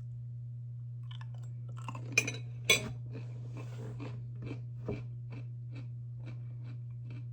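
Mouthful of dill pickle being chewed: two loud crunches about two seconds in, then steady chewing at about two chews a second.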